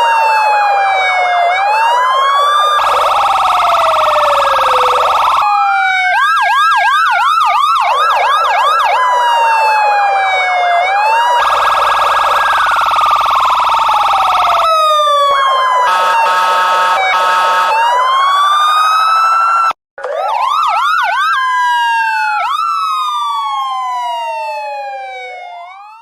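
Police car sirens switching between a slow wail that falls and rises in pitch, a rapid yelp, and harsh steady horn-like blasts. The sound cuts out for an instant about twenty seconds in, then fades away near the end.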